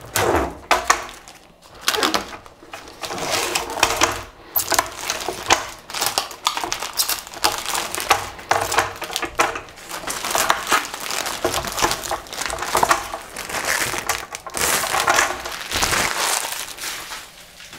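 Protective plastic film being peeled off an acrylic sheet, a continuous crackling and rustling, then the peeled-off film crumpled into a ball by hand near the end.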